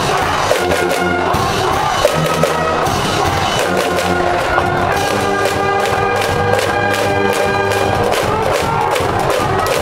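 High-school cheering-section brass band playing a fight song, trumpets holding long notes over a steady drum beat, with the crowd in the stand cheering along.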